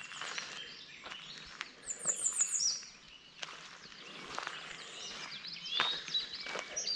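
Footsteps on a trail, irregular crunching steps, with songbirds singing: a quick run of high, falling notes about two seconds in and more calls near the end.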